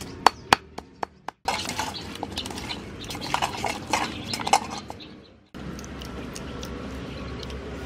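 A pestle knocking in a stone mortar, about four sharp strikes a second, for the first second or so. Then hands mixing and squeezing meat in a metal basin, a wet noise with clinks against the bowl. From about five and a half seconds in, a steady low noise with faint ticks while grilled meat is cut.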